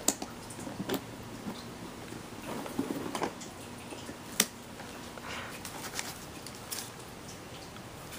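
Handling noises from opening a laser kit's packaging: scattered sharp clicks and taps, the loudest right at the start and about four seconds in, with a brief soft rustle around three seconds in.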